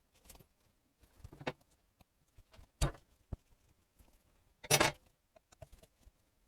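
Metal tools and small engine parts clinking and knocking as they are handled during a motorcycle engine strip-down: a few scattered clicks, a sharp knock about three seconds in and a short, louder clatter about five seconds in.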